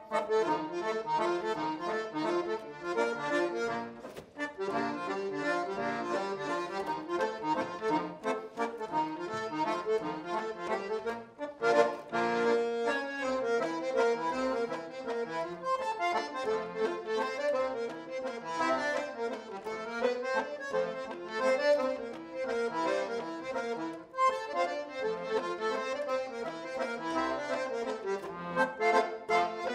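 Solo Chemnitzer-style concertina playing a waltz: a reedy melody over steady chords, without a break.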